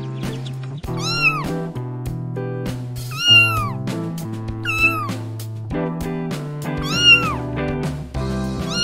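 A cat meowing four times, roughly every two seconds, each meow rising and then falling in pitch, with a fifth beginning at the very end; background music with sustained notes and a steady bass plays underneath.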